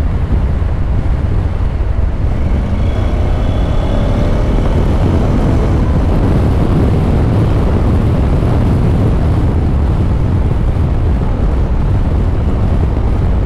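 Motorcycle under way at road speed: steady rushing wind on the microphone over the running parallel-twin engine of a Honda NC750X DCT.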